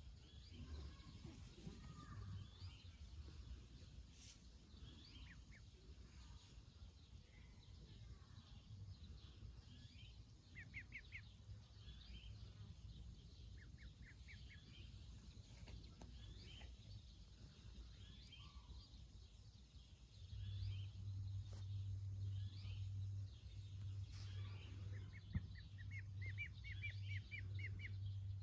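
Ducklings peeping: short runs of quick, high chirps that come and go, with the busiest run near the end. A low steady rumble runs underneath and gets louder about two thirds of the way in.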